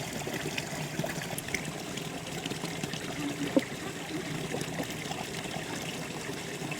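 Water running and trickling steadily, with a few faint small clicks over it.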